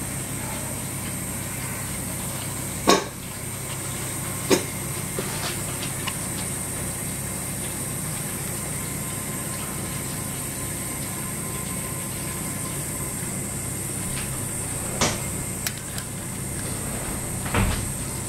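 A few short, sharp knocks, the loudest about three seconds in, then others near the middle and toward the end, over a steady low hum and hiss.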